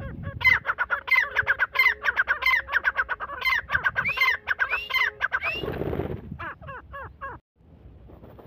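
Grey francolin calling: a fast series of ringing, repeated notes for about five seconds, then a short rustling rush and a few more notes before the sound cuts off suddenly.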